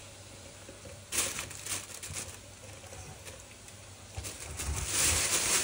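Thin plastic bag crinkling and rustling as sliced meat rolls are handled: a short rustle about a second in and a longer, louder one near the end. A low steady hum runs underneath.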